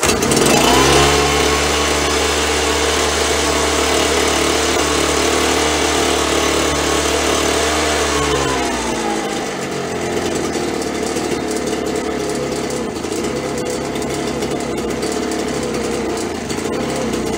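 Ryobi BP42 backpack blower's two-stroke engine catching on a pull with the choke half off and running fast and steady. About eight seconds in, its speed sags to a lower, less even run: the engine is starving for fuel and the carburetor needs adjusting.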